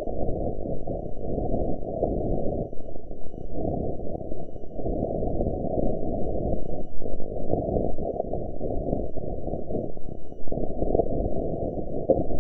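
Muffled, rumbling noise with no clear pitch, all of it low, swelling and dipping every second or two.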